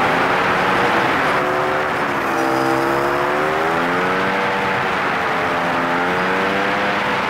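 A motorcycle engine running under a steady haze of wind noise, its note rising and falling smoothly every second or two as the throttle changes through the curves. The recording is fast-forwarded, so the engine sounds high and its swings come quickly.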